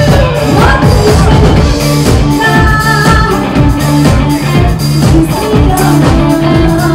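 A live rock band playing loudly: a steady drum beat under bass and electric guitar, with held melody notes over the top.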